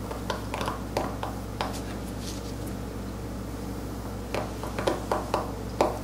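Steel carving knife cutting into a stone seal in short, sharp scraping strokes. There is a cluster of about six in the first two seconds, a pause, then another cluster of about six near the end.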